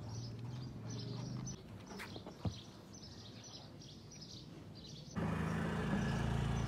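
Small birds chirping over and over, with a low steady hum. About five seconds in, a louder steady humming buzz starts.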